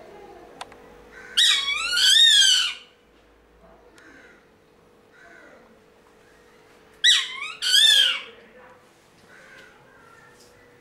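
A captive raptor screeching twice, about five seconds apart. Each call is a loud, wavering squeal in two parts.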